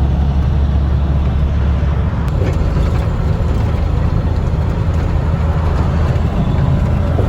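Semi-truck engine and road noise heard inside the cab while driving: a steady low drone.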